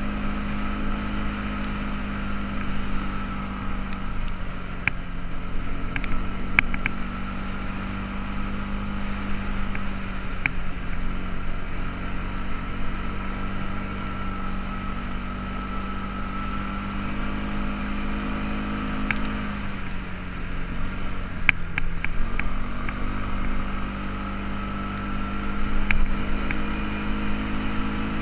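ATV engine running steadily while riding a gravel trail, its note dropping briefly about a third of the way in and again about three quarters through before picking back up. Occasional sharp clicks sound over it.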